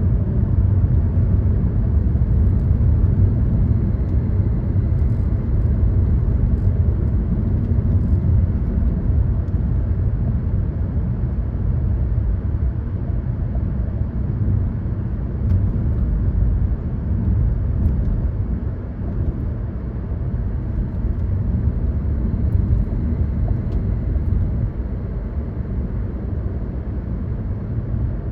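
Car driving along a road: a steady low rumble of engine and tyre road noise, dropping slightly about two-thirds of the way through.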